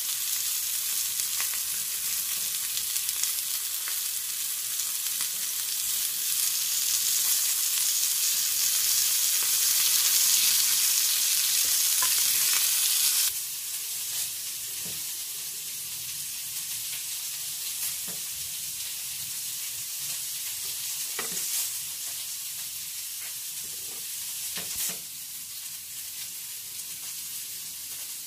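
Marinated chicken drumsticks sizzling on a hot ridged grill pan, a steady hiss that swells louder, then cuts off suddenly about halfway through. A fainter hiss with a few light taps follows.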